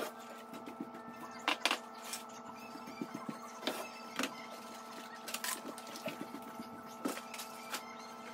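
Boxes, bags and plastic food containers being taken out of a pantry cabinet: scattered knocks, clicks and packaging rustles, a few of them sharper, over a steady hum.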